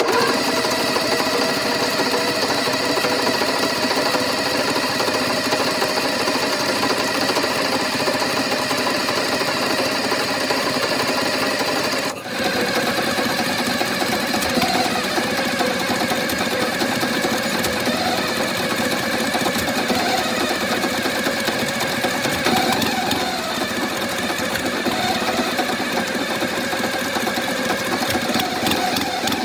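Large turbocharged six-cylinder diesel engine, a Cummins NTA855, running steadily with a dense mechanical clatter, briefly dropping for a moment about twelve seconds in.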